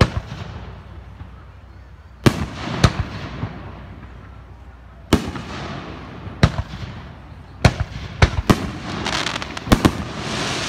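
Aerial fireworks going off: a string of about ten sharp bangs, a couple of seconds apart at first and coming faster after about seven seconds. Near the end a hiss of noise builds between the bangs.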